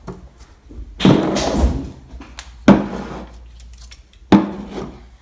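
Plastic spray bottles being handled and set down on a tabletop: a stretch of handling noise about a second in, then two sharp knocks a little under two seconds apart.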